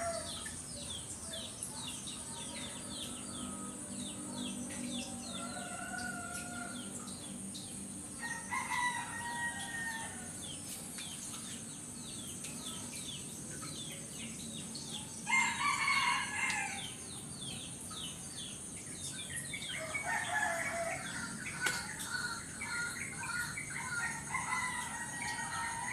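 Roosters crowing a few times, loudest a little past halfway, over constant small-bird chirping and a steady high insect drone.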